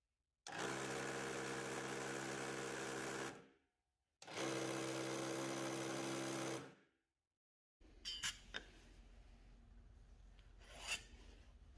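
Homemade scroll saw driven by a small DC motor with a wooden crank disc, run twice for about three seconds each: a steady motor hum with the rattle of the reciprocating blade linkage, winding down each time the power is cut. After that come a few light clicks and rubbing as a steel ruler and pencil are worked on a plywood sheet.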